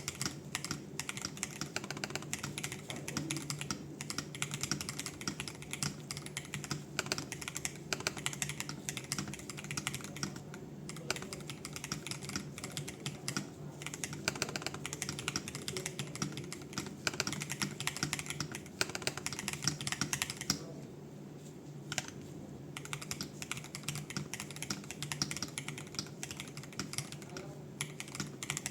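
Steady, fast typing on an Aula Win60HE Max hall-effect keyboard with its stock foam, stock PBT doubleshot keycaps and UR Ice Ultra magnetic switches: a dense run of key clacks with a short pause about three-quarters of the way through. Heard through a phone microphone.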